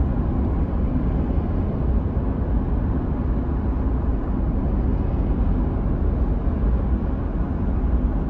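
Steady road and engine noise of a moving car, heard from inside the cabin as an even low rumble.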